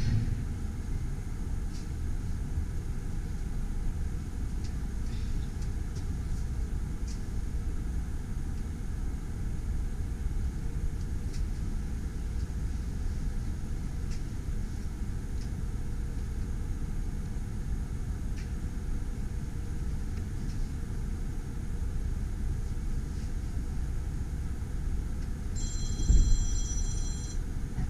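Steady low rumble inside a railway carriage as the train is loaded onto a train ferry. Near the end there is a bump and a brief high-pitched squeal.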